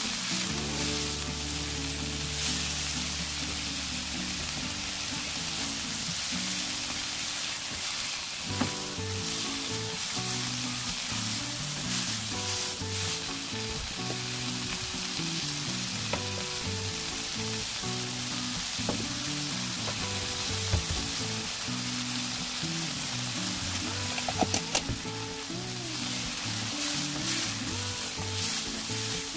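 Eggplant pieces with minced meat and chili sizzling steadily in oil in a hot nonstick pan, stirred with a silicone spatula, with a few light clicks of the spatula against the pan.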